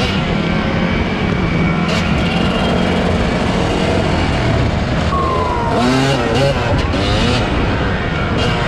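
Dirt bike engine running on the move, with a steady rush of noise; about five seconds in the engine pitch glides up and down as the revs change.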